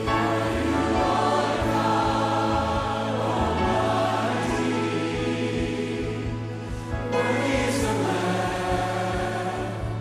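Worship song with a choir singing sustained notes over a steady held low note; the level dips briefly a little past the middle.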